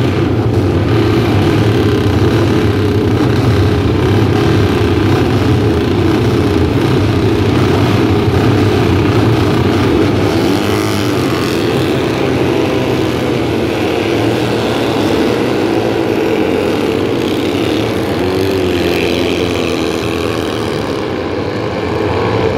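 A pack of historic racing motorcycle engines running loudly together as the field pulls away from a Le Mans-style start. Twice, near the middle and again later on, a single bike's engine note rises and falls as it revs past.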